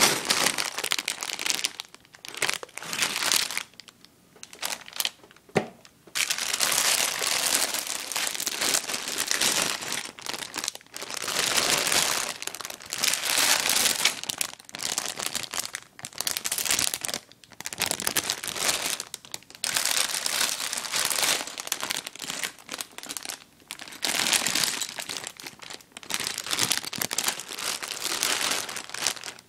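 Clear plastic bags of Lego Technic pieces crinkling as they are handled and lifted out of the box, in irregular bursts with short pauses.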